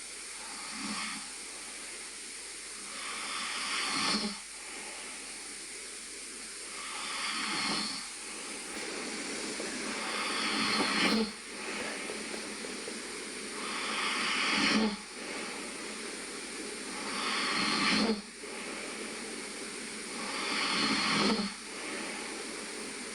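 A sleeping person snoring: seven rasping breaths, about one every three and a half seconds, each swelling and then cutting off sharply, over a steady hiss.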